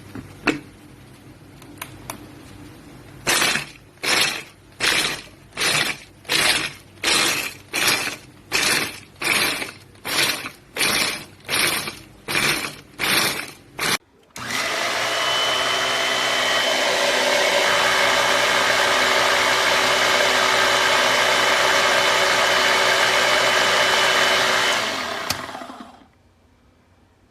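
Electric food chopper motor run in short pulses, about one and a half a second, for roughly ten seconds, then run continuously for about eleven seconds before it winds down and stops near the end.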